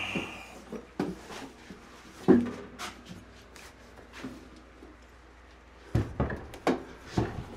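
Knocks and thumps of a heavy metal-cased EG4 6000XP inverter being lifted and bumped against a wall while it is hung: a loud knock about two seconds in and a quick run of four knocks near the end.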